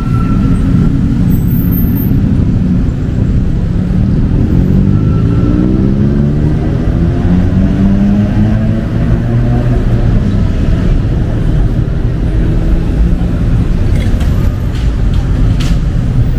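City street traffic: a steady low rumble of engines and tyres, with one vehicle's engine climbing in pitch as it accelerates, from about four to ten seconds in.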